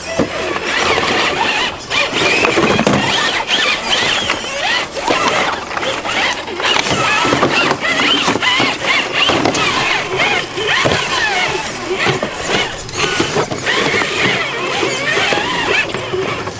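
Electric motors and gear drives of scale RC rock crawlers whining, the pitch rising and falling over and over as the throttle is worked, with occasional knocks of the trucks on rock.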